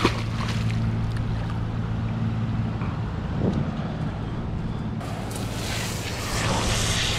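One sharp splash as a released red drum hits the sea. Under it runs the steady low hum of an idling outboard motor. From about five seconds in there is rough splashing and hissing of water as a hand sweeps through the sea over the side.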